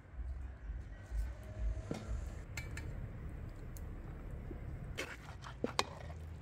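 Metal ladle and aluminium cooking pots clinking and knocking a few times over a steady low rumble, with the loudest sharp clinks coming close together near the end.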